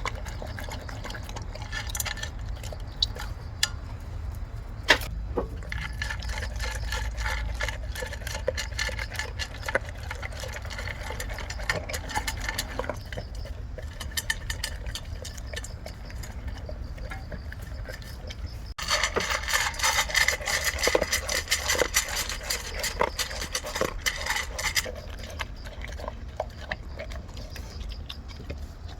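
Labrador retriever lapping water from a bowl: a rapid run of wet laps and splashes, loudest for several seconds past the middle, over a steady low hum.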